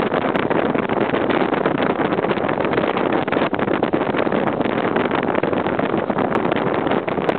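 Steady rushing noise aboard a water taxi under way: its engine running together with the rush of water and wind.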